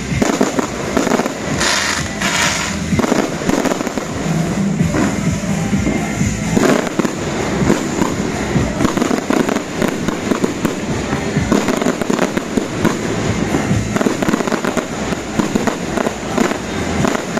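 Fireworks display going off without a break: a dense run of bangs and crackling bursts.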